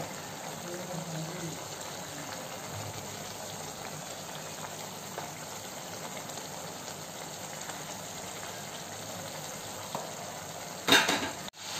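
Beef in masala gravy simmering and sizzling in a pan as its liquid cooks down, a steady low bubbling hiss. Near the end comes a short louder noise, then the sound breaks off for an instant.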